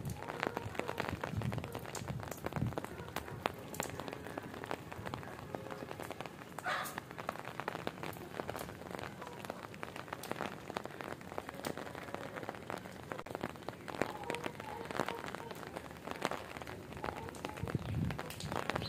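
Rain falling on brick and concrete, heard as a dense, steady patter of many separate drops striking close by.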